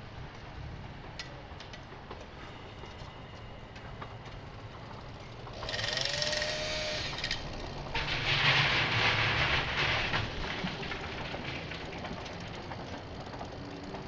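Ex-1938 London Underground Class 483 electric train running away over the track with a steady low rumble. About six seconds in there is a short high screech with a rising tone, then a louder hissing screech for about two seconds from eight seconds in.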